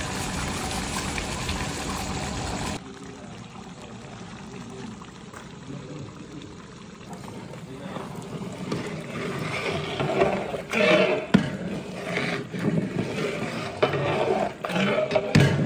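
A long-handled ladle stirring thick, steaming gravy in a large aluminium pot: irregular liquid sloshing and swishing from about eight seconds in, with a few knocks of the ladle against the pot. Before that a steady background hiss cuts off abruptly about three seconds in.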